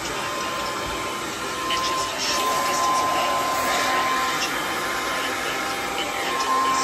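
Handheld hair dryer with a comb attachment running steadily: an even rush of air with a steady high whine from the motor.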